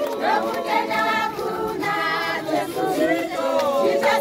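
A group of church members, mostly women and girls, singing together unaccompanied, many voices at once.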